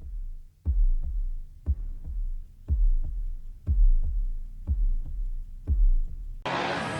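Heartbeat sound effect: deep double thumps about once a second, like a slow pulse. Near the end it cuts off suddenly into a steady, full noise with a few held tones.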